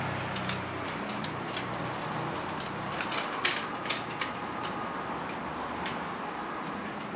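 Metal taiyaki irons clicking and clacking as they are worked on the griddle: scattered sharp clicks, a cluster of them about three to four and a half seconds in, over a steady hiss.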